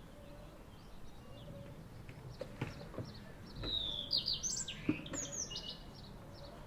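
A small songbird singing a quick burst of high chirps and trills in the middle, over faint outdoor background noise, with a few short knocks.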